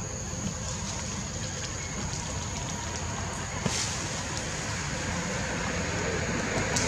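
Forest ambience: a steady high-pitched insect drone over a constant rushing noise, with a few faint clicks.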